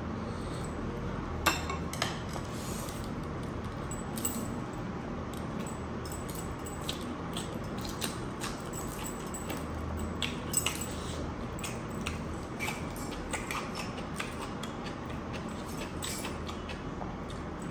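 Close-miked eating of rice and chicken by hand: wet chewing and mouth clicks, with a few sharp clinks about a second and a half and two seconds in, over a steady background hiss.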